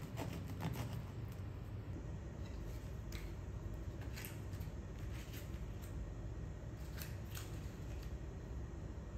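Crackling of a crusty home-baked rye loaf's crust as it is handled and pulled apart, then a few short, separate scratchy scrapes of a knife on the bread crust and plate as butter is spread, over a low steady hum.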